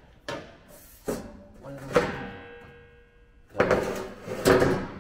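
Metallic clanks and knocks from a galvanized steel bracing bar being handled against a bare steel car shell. One knock about two seconds in rings on for about a second, and a quick run of rattling knocks comes near the end.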